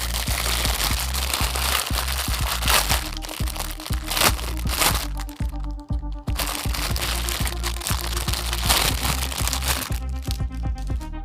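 Background music with a steady beat, over crackling and clicking as silicone pop-it fidget toys and their packaging are handled.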